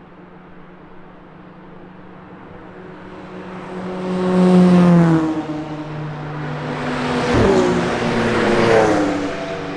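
Cars driving past at speed one after another, each engine note swelling as it approaches and dropping in pitch as it goes by; the loudest pass comes about halfway through, a second one near the end.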